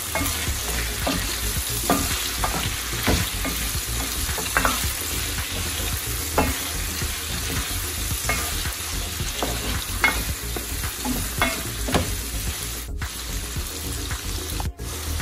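Chicken pieces with tomato, onion and ginger sautéing in oil in a coated pot, sizzling steadily, while a black spatula stirs them with irregular scrapes and knocks against the pot. This is the sautéing (gisa) stage of ginisang monggo.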